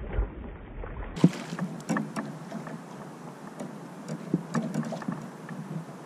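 Water lapping against a fishing kayak's hull, with small irregular clicks and knocks from rod, reel and kayak gear while a hooked bass is fought on the line. A sharp knock comes about a second in.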